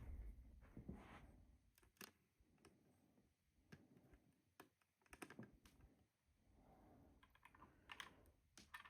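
Faint, scattered small clicks and rustling from handling a plastic toy remote control car and its remote, a dozen or so irregular ticks with a cluster near the end.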